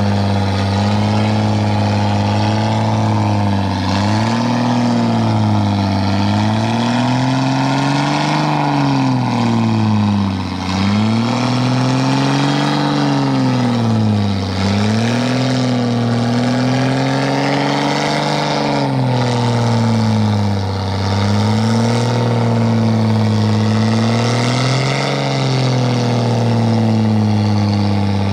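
Off-road 4x4's engine running hard, its revs rising and dipping every few seconds as the throttle is worked.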